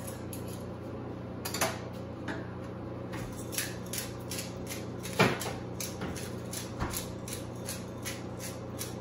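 Hand-twisted black pepper grinder being turned, giving a run of short grinding clicks about three a second from about three seconds in, with a sharper knock about five seconds in and a smaller one near the start. A steady low hum lies underneath.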